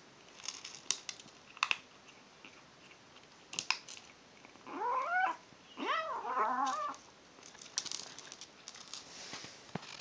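Kitten making its odd eating noises: two pitched calls that rise and fall, about five and six seconds in, the second longer and wavering. Around them come scattered crisp clicks of dry kibble being crunched.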